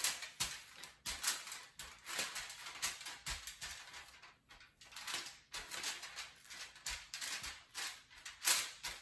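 Aluminium foil crinkling and rustling in irregular short strokes as hands press and pat a round of biscuit dough flat on it.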